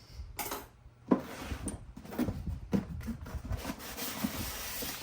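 Cardboard box being slid open and its packaging handled: a sharp knock about a second in, then cardboard scraping and rustling with small clicks.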